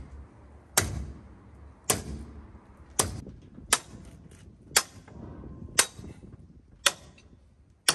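Sledgehammer blows on a steel drift, knocking a pin out of a T-34/85's steel track: sharp metallic clangs with a short ring, about one a second.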